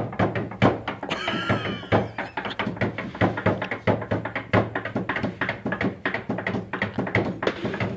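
Hands drumming a nagada-style rhythm on a tabletop: a fast, steady run of knocks and slaps, several a second. About a second in, a brief wavering high sound rises over the beat.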